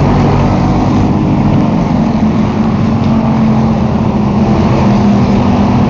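A field of short-track stock race cars running laps at speed. Their engines make a loud, steady drone with several engine notes overlapping.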